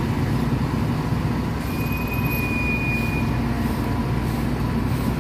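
Heavy lorry's diesel engine running steadily with a low, even hum. A thin high tone sounds for about a second and a half, starting a little under two seconds in.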